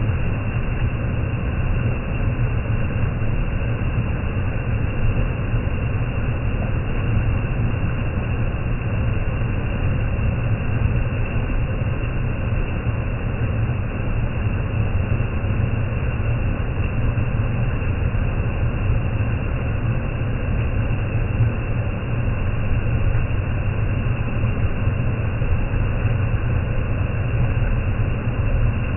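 Waterfall in heavy rainy-season flow: a steady, deep rush of falling water.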